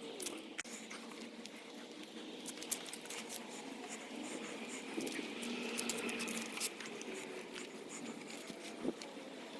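A mountain bike being hand-washed with soapy water: wet scrubbing and dripping, with many small scattered clicks and taps.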